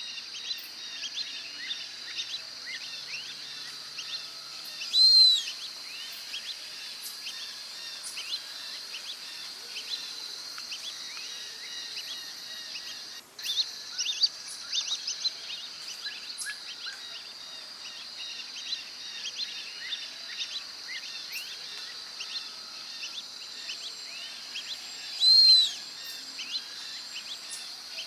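Brazilian teal (marreca-ananaí) calling twice, once about five seconds in and once near the end. Each call is a short, high note that rises and falls, over a steady chorus of insects and many small chirps.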